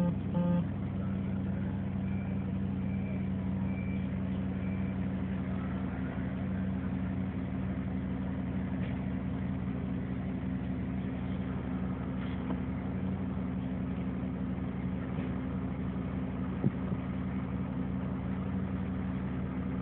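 Vehicle engine idling steadily close by, with four short, evenly spaced high beeps a couple of seconds in.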